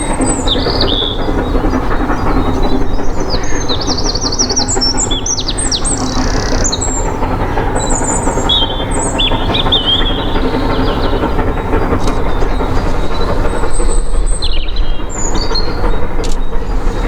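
A preserved steam train passing with a steady, loud rumble of locomotive and coaches on the rails, growing a little louder near the end. Songbirds sing in short, high chirping phrases over it.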